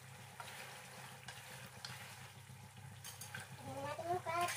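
Squid and seafood in cajun sauce sizzling softly in a frying pan while a wooden spatula stirs it, with light scraping strokes. A short rising pitched sound comes near the end.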